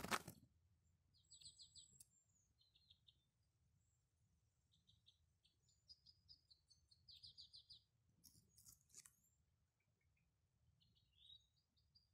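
Faint calls of a white-winged crossbill flock: short series of rapid, dry, high notes, repeated several times with pauses between. A brief loud burst of noise at the very start, and fainter ones around eight to nine seconds in.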